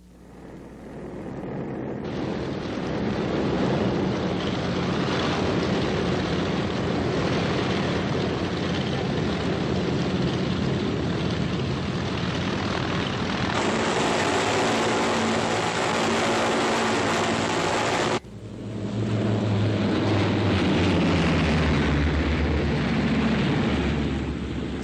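Propeller-driven C-47 transports' twin radial engines running at full power for takeoff, a dense steady drone. It swells in over the first couple of seconds and changes abruptly in tone twice, with a heavier low engine beat near the end.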